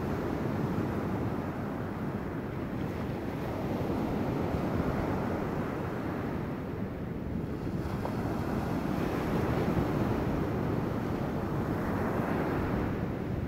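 Ocean surf breaking and washing up a sandy beach: a steady rushing that swells and eases, twice rising to a louder wash, with wind buffeting the microphone.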